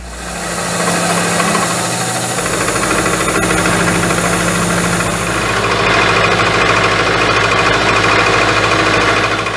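Milling machine running with an end mill cutting a slot in a metal plate: a steady machine hum under a harsh cutting noise that gets stronger about six seconds in.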